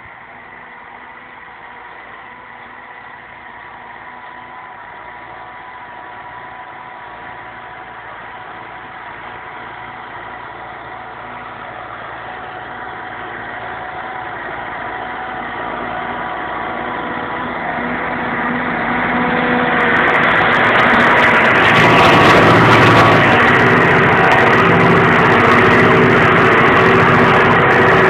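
Tractor engine pulling a disc plough, running steadily. It grows gradually louder over about twenty seconds, then holds loud near the end.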